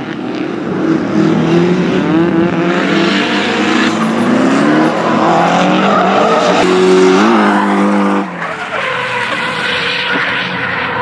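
Drift car engines revving up and down with tires skidding as the cars slide sideways. About eight seconds in, the strong engine note drops away suddenly.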